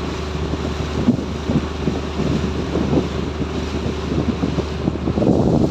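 Wind buffeting the microphone on a small boat, over a steady low engine hum and water noise. The hum drops away near the end as the wind noise gets louder.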